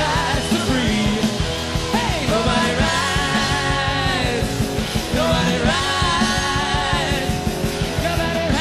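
Live hard rock band playing loud: pounding drums and electric guitars, with long wavering held notes sung or played over the top.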